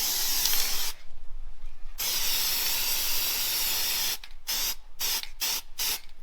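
Aerosol can of spray adhesive hissing as it is sprayed. It stops for about a second one second in, then sprays again, and near the end it gives several short bursts.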